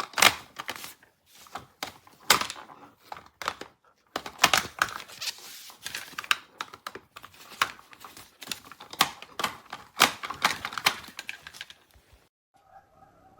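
Plastic toys on a baby bouncer's toy bar being spun and handled, giving rapid irregular clicking and rattling. About a second before the end this stops suddenly and a steady wavering tone begins.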